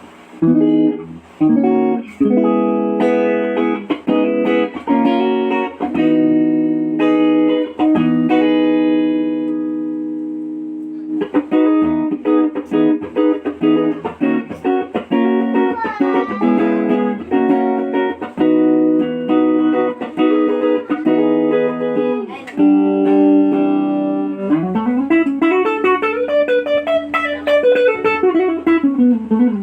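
Unbranded Telecaster-style electric guitar played solo: picked single notes and chords. A chord is left to ring and fade about a third of the way in, then quicker runs follow, and near the end a note slides up the neck and back down.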